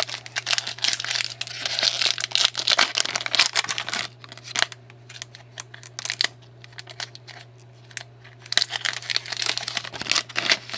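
Trading-card pack wrapper being torn open and crinkled by hand, in two spells: through the first few seconds and again near the end.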